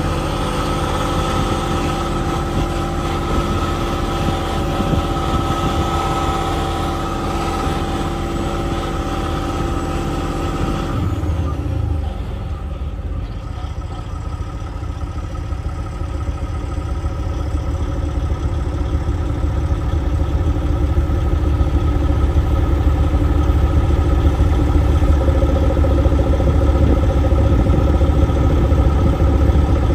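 Heavy diesel engine running steadily with a low hum. About eleven seconds in, the sound changes abruptly to a deeper engine rumble that grows louder through the second half.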